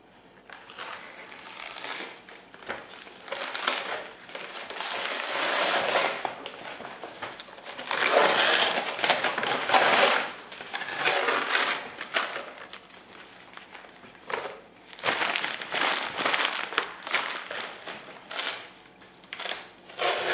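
Paper crinkling and rustling as hands press and smooth sheets of printed paper around a model plane's fuselage, in uneven stretches with small crackles and clicks.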